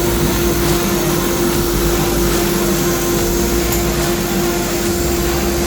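Steady machine hum with one constant tone from a dust extractor running on a CNC router, with the router's automatic dust shoe actuator working and giving a few faint ticks.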